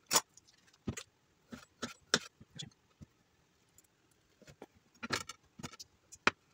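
Irregular sharp clicks and knocks of kitchen utensils and cookware being handled, about a dozen scattered through, the loudest near the start and about two seconds in.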